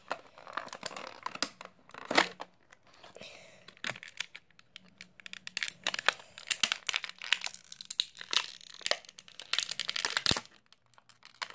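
Toy packaging being opened by hand: a cardboard box pulled apart, then clear plastic packaging crinkled and pried at, giving irregular crackles, tears and clicks. A loud crack comes about two seconds in, and the crinkling is densest from about six to ten seconds in, then stops suddenly.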